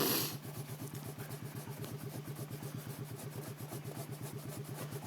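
ATV engine idling with a steady, even throb. A brief rustle or clatter sounds right at the start.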